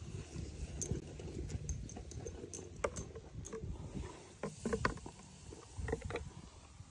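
Irregular light taps and clicks over a low rumble: a bottle and horse running boots being handled as OxiClean powder is sprinkled on.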